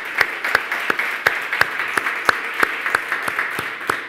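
Audience applause in a hall, with one person's sharp claps close to the microphone standing out at about three a second over the general clapping.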